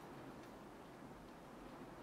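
Gentle rain on a window pane heard from inside a room: a faint steady hiss with a few soft ticks of drops striking the glass.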